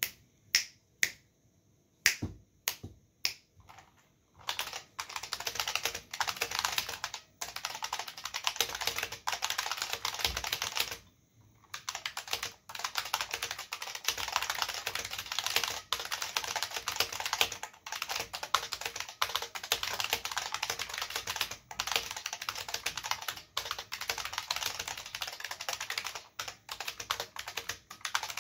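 IBM Model F122 keyboard's capacitive buckling spring switches clacking under PBT keycaps as it is typed on: first a string of single, separate keystrokes, then fast continuous typing from about four seconds in, with a short pause near the middle.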